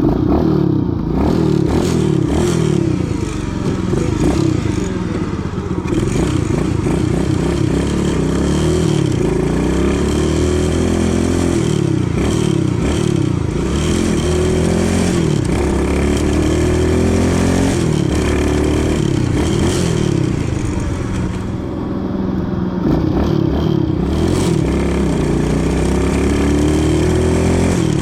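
X15 super pocket bike's small single-cylinder engine under way, its revs climbing and dropping back over and over as it accelerates and shifts.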